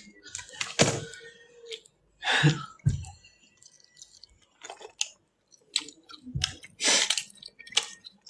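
A person chewing soft, chewy Skwinkles chili candy strips close to the microphone, with irregular wet mouth smacks and clicks, a few of them louder.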